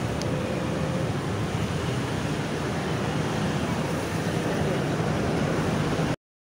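Steady rumbling background noise with no voices; it cuts off suddenly near the end.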